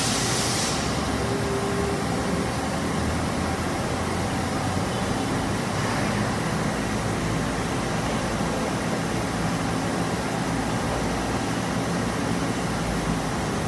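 Mori Seiki ZT1500YB CNC lathe cutting a part under flood coolant: a steady machining noise of spindle, tool and spraying coolant, with a high hiss that drops away about a second in.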